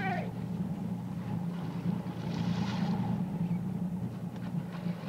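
Fishing boat's engine running with a steady low hum, with a brief hiss about two and a half seconds in.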